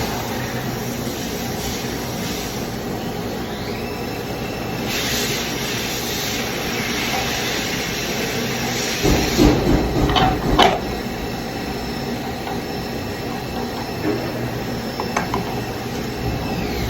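Steady mechanical hum and hiss of machine-shop background noise, with a faint high whine held through most of it. A few clunks of metal parts being handled come about nine to eleven seconds in.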